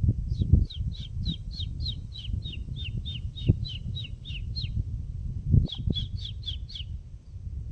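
A songbird singing a long series of quick repeated down-slurred notes, about four a second, then a shorter burst of five notes near the end. A low rumble with a few soft thumps runs underneath.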